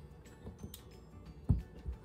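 Faint background music, with a dull thump about a second and a half in and a softer one near the end as apples and the corer are handled on a cutting board.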